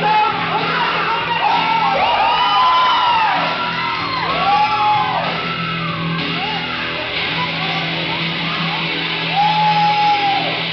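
Heavy metal music with shouted and sung vocals over guitar; the vocal lines rise and fall in long arcs.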